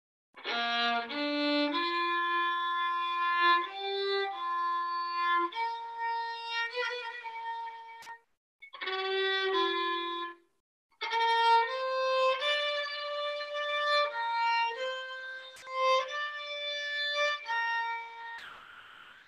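Solo violin playing a slow melody of held notes, one line at a time, in phrases broken by two short pauses.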